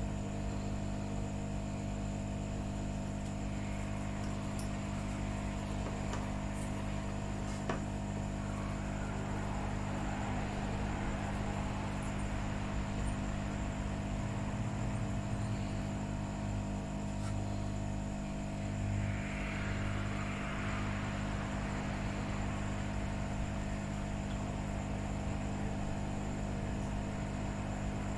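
Steady electrical mains hum with a constant faint hiss. There are a few faint ticks and, now and then, a soft brief rise in hiss.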